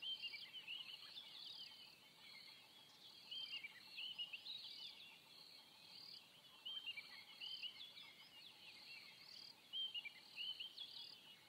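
Faint natural ambience: an insect chirping in a steady high pulse about twice a second, with many short, quick bird chirps over it.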